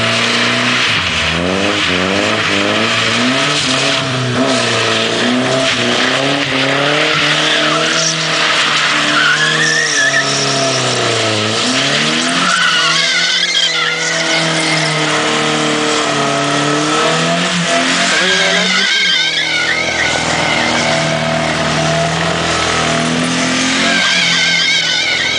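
BMW E30 spinning donuts: its engine revs rise and fall again and again while the rear tyres spin, smoke and squeal on the tarmac, loud throughout.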